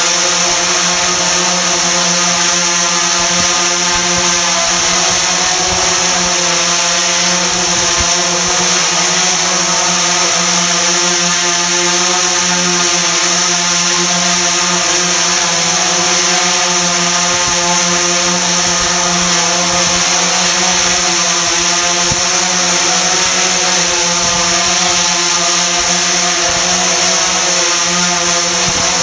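DJI Phantom 3 Professional quadcopter hovering at low height, its four motors and propellers making a loud, steady buzzing whine: a stack of tones with a hiss above, the pitch wavering slightly.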